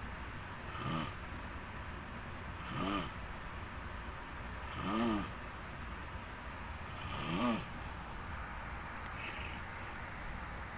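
A person snoring: four snores about two seconds apart, each a brief pitched snore that rises and falls, over a steady background hiss.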